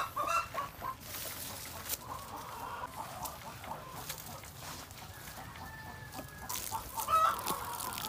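Chickens clucking, in short calls that come and go.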